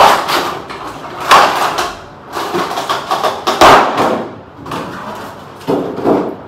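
Plastic wrapping rustling and crinkling as a large toy figure is pulled out of its clear plastic box, with a few loud knocks as it bumps against the box.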